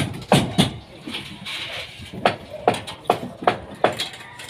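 Hammer blows on timber slab formwork: sharp, evenly spaced knocks about two and a half a second, with a pause of about a second after the first two.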